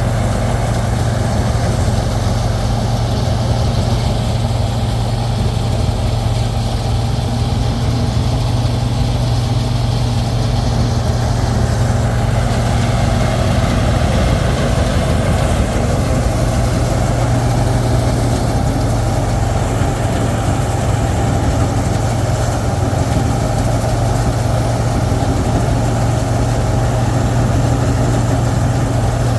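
Combine harvester's engine running steadily: a loud, even drone with a strong low hum that does not change.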